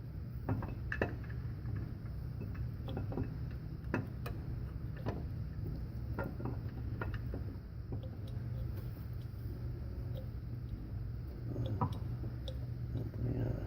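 Irregular light clicks and taps of metal engine parts being handled during a camshaft install, over a steady low hum.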